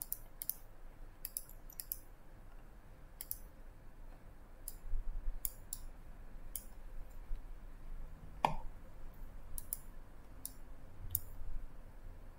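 Computer mouse clicking: scattered single clicks, with one louder knock about eight and a half seconds in.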